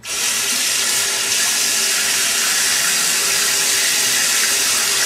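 Bathroom sink tap turned on suddenly, water running in a steady stream into the basin.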